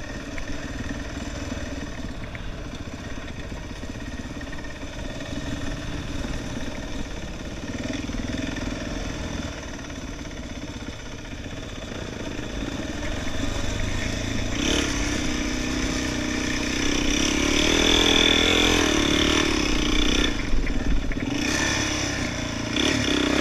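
Quad bike engine running at low, steady throttle on a dirt track. About halfway through it grows louder, with the revs rising and falling. It eases off briefly near the end, then picks up again.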